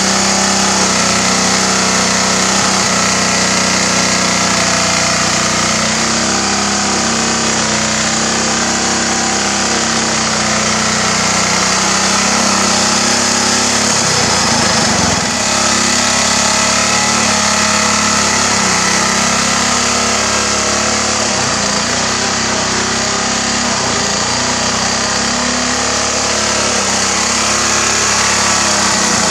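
Small go-kart engine fitted to a Craftsman riding mower, running steadily as the mower is driven a little forward and backward, with a brief dip in level about halfway through.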